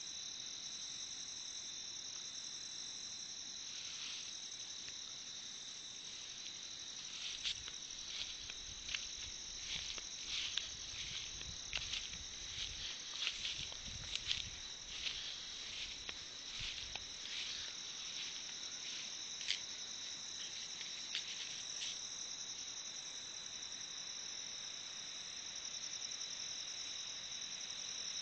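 Insects on a grassy hillside keep up a steady, high-pitched chirring trill. From about a quarter of the way in until past the middle, a run of irregular clicks and knocks sounds over it, with a low rumble among them.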